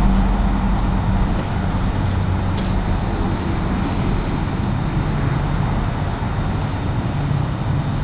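Wind buffeting the camera's microphone: a steady low rumble with hiss.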